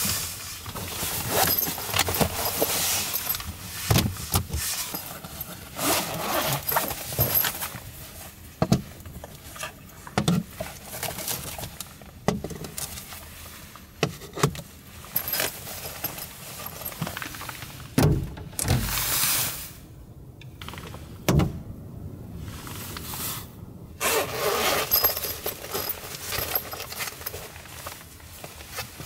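Camping gear being handled: a storage box opened, small lights set down on a wooden tabletop, and a padded fabric case handled. The sound is a run of irregular clicks and knocks with fabric rustling between them, and a longer stretch of rustling about two-thirds of the way in.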